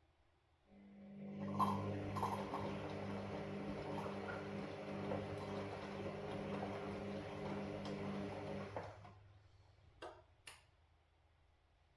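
Washing machine running: a steady hum with water noise and small knocks starts about a second in, runs for roughly eight seconds and then stops, followed by two short clicks.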